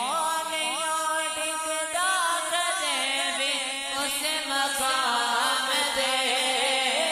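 A man's voice chanting a naat, one long ornamented vocal line with glides and turns over a steadier held tone beneath.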